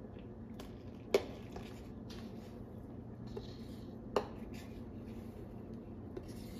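Spoon stirring milk in a stainless steel pot as vinegar is added to curdle it, with two sharp clinks of the spoon against the pot, about a second in and about four seconds in, and a few softer taps.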